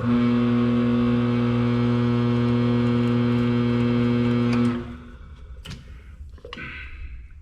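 Electric motor of a Clausing drill press running with a steady hum, cut off sharply about five seconds in, followed by a couple of light knocks.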